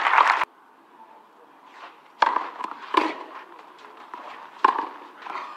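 Tennis rally on a clay court: three sharp pops of the ball being struck by the rackets and bouncing, spaced about a second apart. Crowd noise cuts off abruptly just before.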